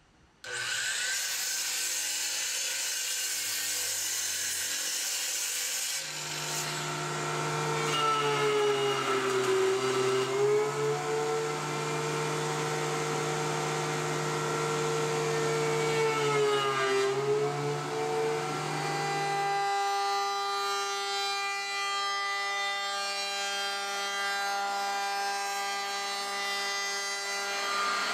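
Workshop power tools in turn. First a sliding compound miter saw cutting a walnut board, a noisy hiss. From about six seconds a benchtop thickness planer runs with a strong motor hum whose pitch dips twice as it takes boards. Near twenty seconds that gives way to a steady, higher whine from a CNC router's spindle.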